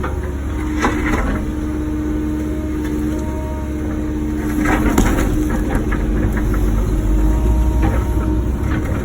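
Wacker Neuson ET145 excavator's diesel engine running steadily with a constant hydraulic whine, as the bucket scrapes and breaks out blacktop and concrete, with sharp knocks and cracks about a second in and around five seconds.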